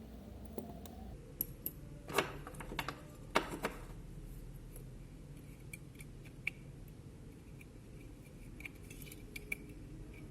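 Light clicks, taps and a couple of short scrapes from small hand tools working on a smartphone's internal parts during disassembly.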